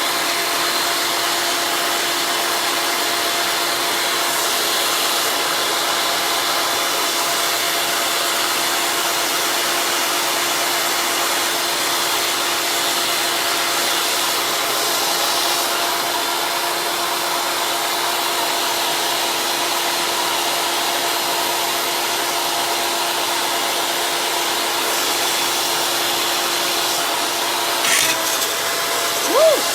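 Small electric motor running at a steady speed with a constant hum. A short knock and a brief rising-and-falling whine come near the end.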